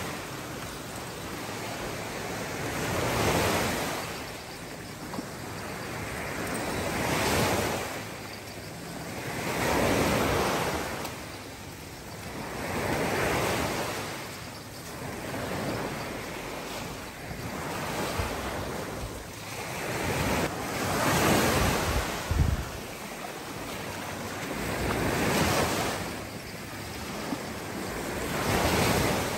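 Small waves breaking and washing up on a sandy shore, swelling and fading every three seconds or so, with wind buffeting the microphone.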